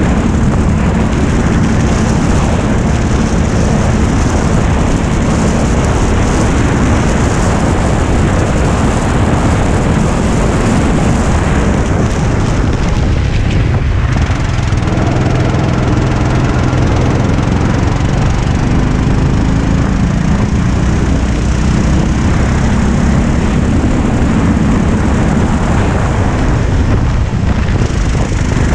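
Racing go-kart's small engine running at speed under a steady rushing noise; the engine note dips about halfway through, then climbs again.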